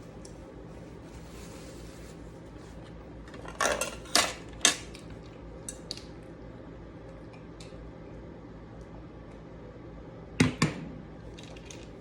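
Cutlery clinking and scraping against a plate a few times, in a cluster about four seconds in and again near the end, over a steady low hum.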